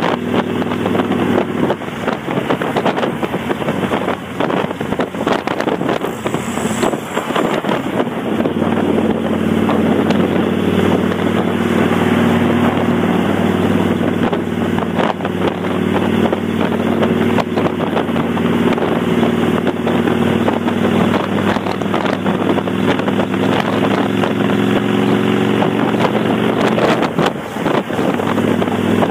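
Kawasaki Vulcan 800's V-twin running at steady cruising speed through Vance & Hines Straight Shots exhaust with the baffle plugs removed, with wind rushing over the microphone. The engine note eases off briefly near the end.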